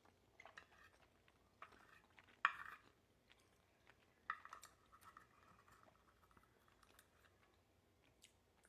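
Close-up eating sounds: a person chewing and biting, with a few short clicks and clinks of utensils or dishes. The loudest bite comes about two and a half seconds in, and another a little after four seconds.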